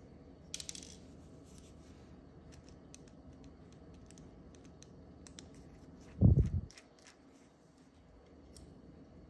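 A small screw clinks into a parts tray about half a second in, followed by faint clicks and scrapes of a precision screwdriver working screws on a small metal camera bracket. A dull low thump a little after six seconds is the loudest sound.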